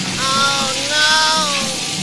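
Background music with a steady repeating beat, and two pitched sounds over it: a short one, then a longer one that falls in pitch at its end.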